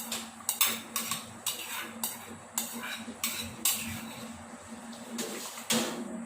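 Metal utensil clinking and scraping against a cooking pot in a run of irregular sharp knocks, about one or two a second, as something is stirred in or added to the bakso broth.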